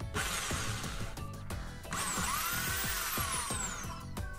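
Bosch electric hand drill running a circular saw blade attachment free, with no cut. It starts just after the beginning, speeds up with a rising and then falling whine about two seconds in, and is released near the end.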